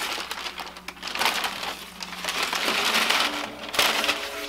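Tissue paper rustling and crinkling in several bursts as a sneaker is pulled out of its paper wrapping in a shoebox.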